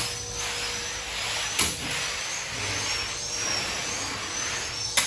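Steady machine-like noise with faint high chirping above it. Two sharp clicks come about a second and a half in and near the end.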